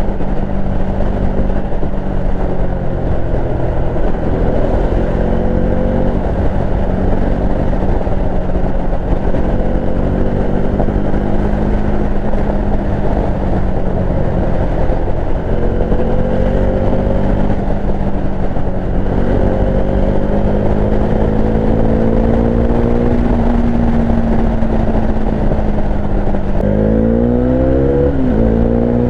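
Bajaj Dominar 400's single-cylinder engine pulling steadily on the road, its note drifting gently up and down over a dense rush of wind and road noise. Near the end it revs up quickly several times in a row as the bike accelerates through the gears.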